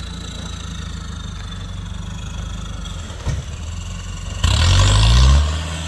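Off-road vehicle's engine running steadily, then revving hard about four and a half seconds in, its pitch rising, with a rush of hiss over it. A short knock is heard about three seconds in.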